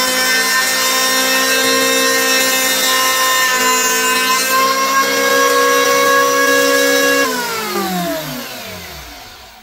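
Electric hand planer, mounted upside down in a jig, running steadily with the hiss of its blades shaving a small wooden stick. About seven seconds in it is switched off, and its motor whine falls in pitch and fades as the cutter head spins down.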